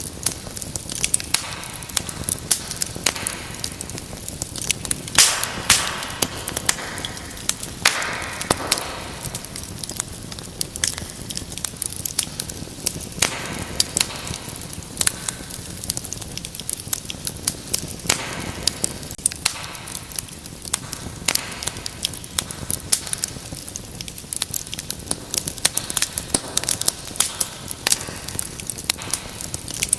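Wood fire crackling: a steady low hiss of flames under many irregular snaps and pops, a few of them louder about five and eight seconds in.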